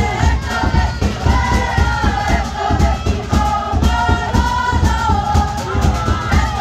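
A group of voices singing a Pacific Island song together over a steady, even beat.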